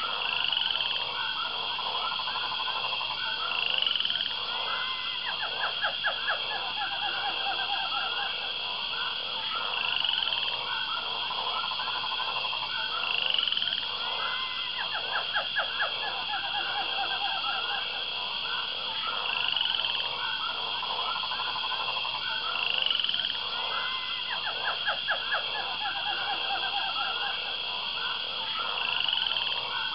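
Tropical night chorus of frogs and insects: a steady high insect trill, short rising calls about every three seconds, and bursts of rapid pulsed frog calls. The same pattern recurs about every ten seconds, as in a looped ambience recording.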